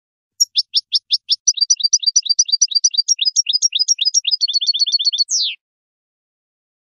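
European goldfinch singing: a run of short, high chirping notes that starts slowly and quickens to a rapid twitter, ending after about five seconds with one longer note sliding downward.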